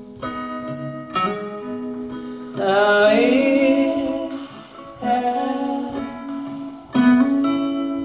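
Acoustic guitar picked note by note, each note ringing on. A voice sings a held, wavering line about three seconds in.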